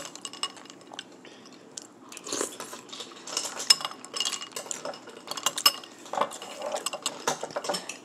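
Metal spoon clinking and scraping against a ceramic bowl while stirring and scooping fruit in coconut water. A run of quick clinks that gets busier about two seconds in.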